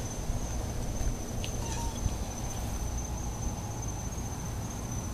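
Crickets chirring as one steady high tone, over a low steady rumble, with a few faint ticks about a second and a half in.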